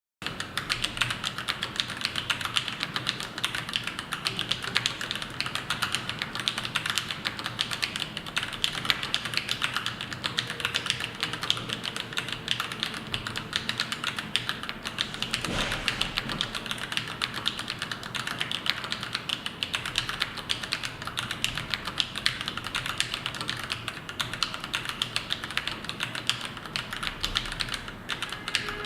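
Continuous fast typing on a mechanical keyboard with Kailh BOX Red linear switches: a dense, uneven clatter of keystrokes, with one heavier stroke about halfway through.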